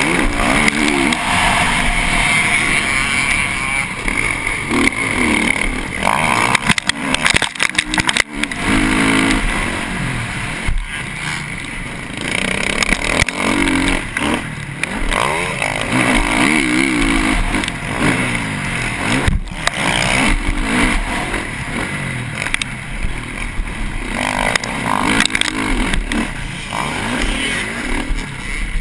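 Four-stroke single-cylinder engine of a TM MX450Fi motocross bike at race pace, its pitch repeatedly rising and falling as the rider opens and closes the throttle through gears and corners. A few sharp knocks break in around seven to eight seconds in and again near the middle.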